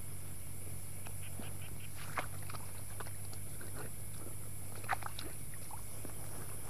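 Short animal calls over a steady high drone and a low hum: a quick run of about six pulsed calls a second about a second in, then a few single sharp calls around two and five seconds in.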